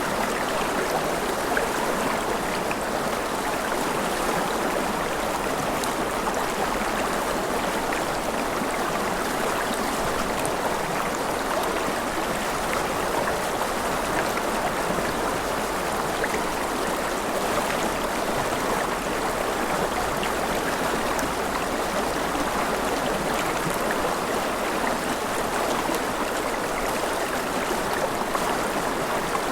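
Steady gentle rain: an even, unbroken hiss of falling water with faint scattered drop ticks.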